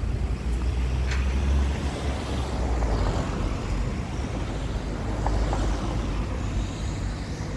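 Road traffic: car engine and tyre noise swelling and fading as vehicles pass, over a low rumble of wind on the microphone.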